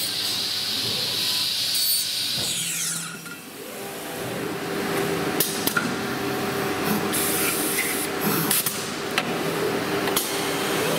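CNC machining centre at work: the spindle runs with a steady high whine, then winds down about 3 s in. The machine then carries on with a lower steady hum, a noisy background and several sharp clicks.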